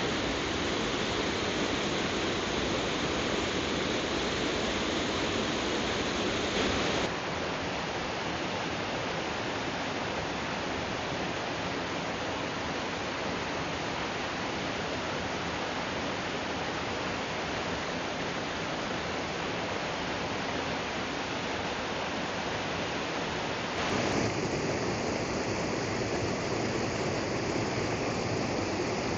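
Waterfall water rushing and splashing in a steady, even roar. The sound changes abruptly twice: it gets a little quieter and duller about seven seconds in, then louder again near the end, as a different fall takes over.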